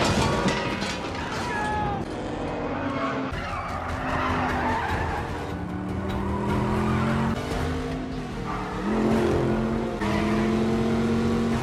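Plymouth GTX's V8 engine revving and running hard under acceleration, its pitch climbing several times, with brief tyre squeals early on. The sound jumps abruptly at several cuts, as in an edited film chase mix.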